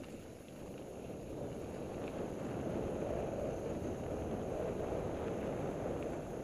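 Mountain bike rolling fast down a dirt singletrack: a steady rumble of tyres on the trail with wind buffeting the microphone, growing a little louder about halfway through, with a few faint ticks and rattles.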